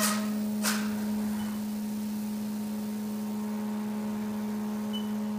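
Haas VF4SS machining centre's spindle driving a carbide end mill through aluminum in a high-speed waveform roughing cut: a steady, even-pitched tone with two brief sharp hits, at the start and under a second in.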